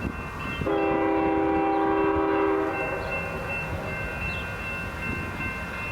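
Locomotive horn of an aggregate freight train sounding one long blast of about two seconds, starting about a second in, over the steady rumble of the passing train. Steady high ringing tones continue under and after the horn.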